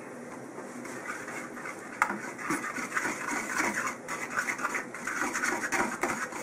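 A spoon stirring and scraping a thick mayonnaise sauce around a wooden bowl in quick, rhythmic scraping strokes that start about a second in. There is one sharp knock against the bowl about two seconds in.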